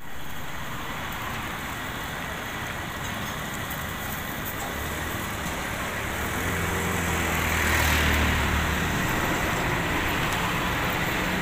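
Roadside traffic noise, with a motor vehicle's engine hum building and passing close by, loudest about eight seconds in.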